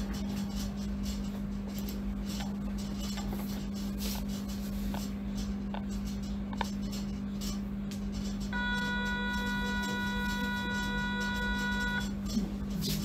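MRI scanner running a scan sequence: a steady low hum with faint irregular clicks. About eight and a half seconds in, a higher buzzing tone starts, holds for about three and a half seconds, then cuts off.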